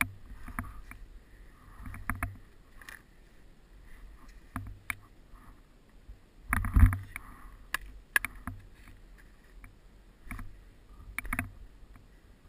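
Skis hissing and crunching through soft, chopped-up powder snow, with a low rumble of wind on the microphone coming and going and scattered sharp knocks; the loudest bump comes about seven seconds in.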